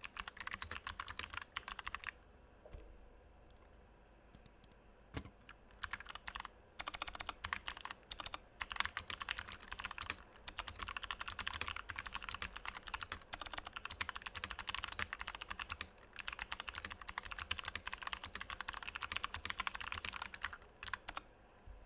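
Typing on a Glorious GMMK TKL mechanical keyboard with Kailh Box Jade clicky switches, unlubed, on stock stabilizers: dense runs of crisp, sharp key clicks. After about two seconds there is a pause of a few seconds with only a few stray keystrokes, then steady typing with brief breaks.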